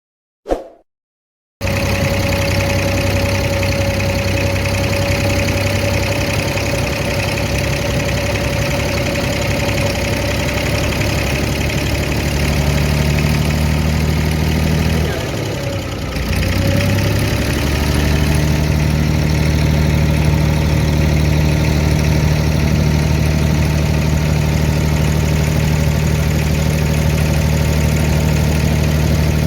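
Inboard engine of an abra (a wooden Dubai Creek water taxi) running steadily. About halfway through it eases off briefly, its pitch dropping, then picks up again. A short click sounds just before the engine comes in.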